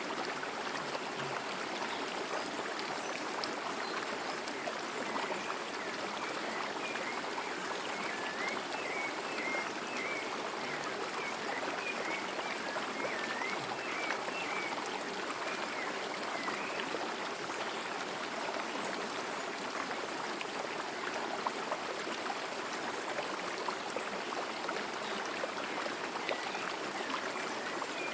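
Small forest stream flowing and babbling steadily over rocks. A bird gives a quick run of short chirps from about five seconds in to about seventeen seconds, and again near the end.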